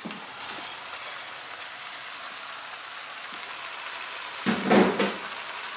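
Beef and sauce sizzling in a stainless-steel sauté pan on a gas burner, a steady hiss, with broccoli just added on top. A brief louder sound comes about four and a half seconds in.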